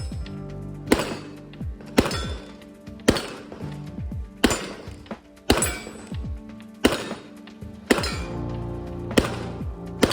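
Background music with a slow, heavy beat: a deep drum hit about once a second over held synth tones.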